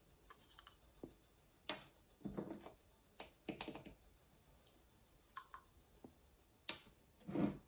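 Faint mouth sounds: scattered lip smacks and tongue clicks from working a mouthful of dry supplement powder, with a short breath near the end.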